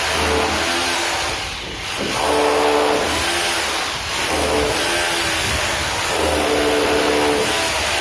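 Rotary hammer drill running against a brick wall in surges, its motor sound swelling and easing about every two seconds.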